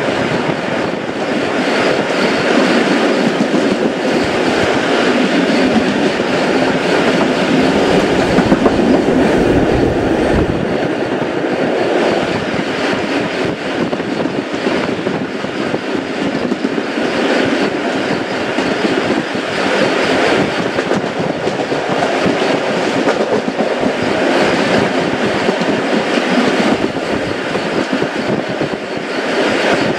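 Heritage steam-hauled passenger train running on the rails: a steady, loud rolling noise of wheels and carriages.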